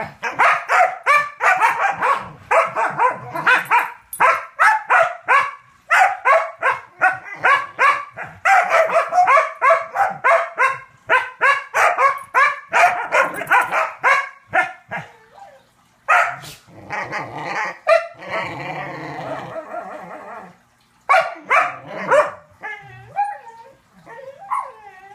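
A small dog barking in long, fast volleys, about three or four barks a second. About two-thirds of the way through, the barking becomes broken, with a rougher drawn-out stretch. A few thinner, higher yips come near the end.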